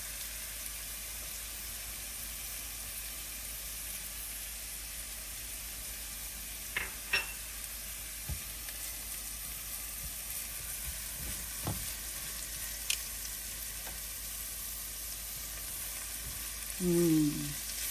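Fresh turmeric, ginger and garlic frying in hot mustard oil, a steady sizzle, with a few light clicks and knocks as they are stirred in the pan.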